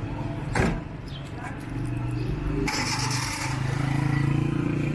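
Street traffic: a motor vehicle engine running close by and getting louder, with a sharp knock about half a second in and a short hiss around the middle.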